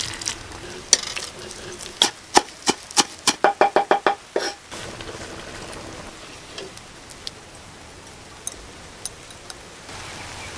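Knife chopping on a wooden cutting board: a few single chops, then a quick run of about eight rapid chops between three and four and a half seconds in. A steady soft hiss follows, with a few faint ticks.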